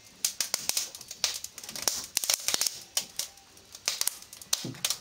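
Wood fire crackling in a fireplace: irregular sharp pops and snaps, several a second at uneven spacing.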